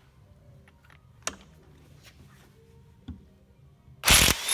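Chicago Electric half-inch electric impact wrench on a nut on the engine's timing side. After a quiet pause with a couple of light clicks, it starts up loudly about four seconds in.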